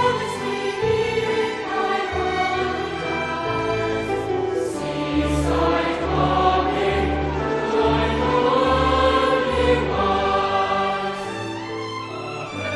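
Background music: a choir singing held notes over an instrumental accompaniment with a steady low bass line.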